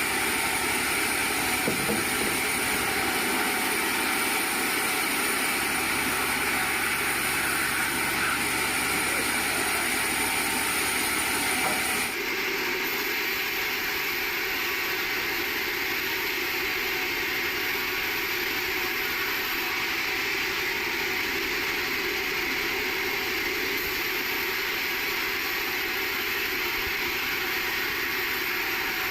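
Sawmill machinery running with a steady, even noise, which shifts abruptly in tone about twelve seconds in.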